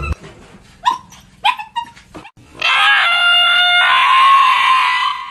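A frightened dog yelping: three short rising yelps, then a long, loud, high-pitched scream lasting about two and a half seconds that fades at the end.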